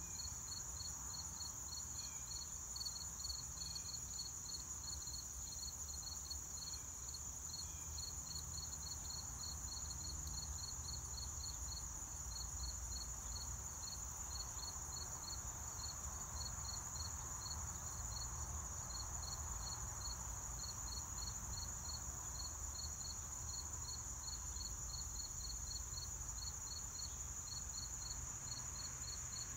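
Insects chirping outdoors: a steady high-pitched drone with a cricket chirping in an even rhythm, about three or four chirps a second, over a faint low rumble.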